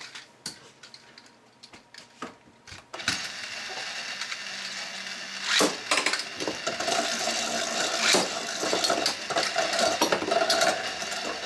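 A few faint handling clicks, then about three seconds in two metal Beyblade spinning tops are launched into a plastic stadium. A steady whirring scrape follows as they spin on the plastic floor, broken by sharp clacks as they hit each other and the walls.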